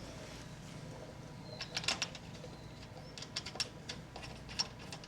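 A hand tool clicking in short, irregular strokes, starting about a second and a half in.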